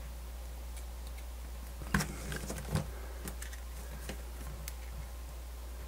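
Faint clicks and light rattling of plastic multimeter test leads and a push-on probe attachment being handled, with two sharper clicks about two and three seconds in, over a steady low hum.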